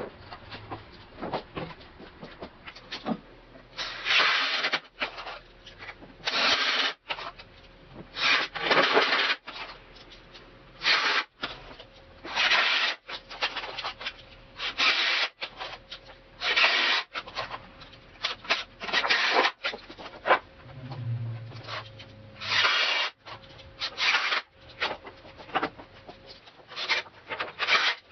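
Wood rubbing and scraping in a long run of short, irregular strokes, about one every second or two.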